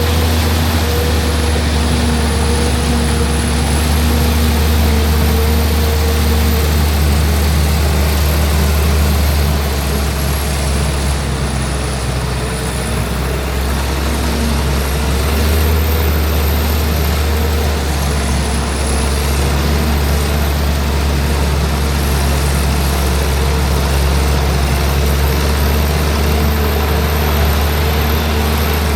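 Heavy diesel farm machinery running steadily at a corn silage harvest: a deep engine drone with a faint high whine that rises and falls.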